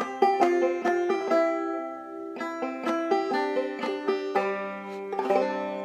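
Five-string banjo played clawhammer style in double C tuning, a quick run of plucked melody notes with drop-thumb strokes. The notes pause briefly about two seconds in, pick up again, and the last notes ring out near the end.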